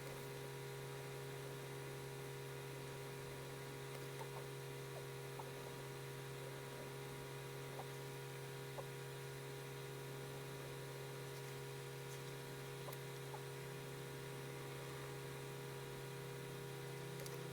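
Steady low electrical hum with a few fainter steady tones above it, broken by a handful of faint light ticks.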